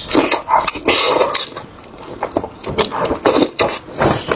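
Close-miked eating sounds: irregular wet chewing, slurping and lip smacking, in quick uneven bursts.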